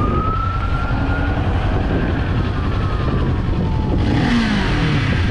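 Motorcycle engine running with a steady low throb, and a whining tone that rises at the start and then slowly falls. A rushing hiss joins about four seconds in.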